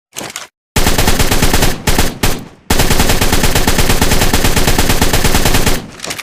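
Assault rifle firing on full automatic: a short quieter sound at the start, a burst of about a second, two short bursts, then a long burst of about three seconds that dies away near the end.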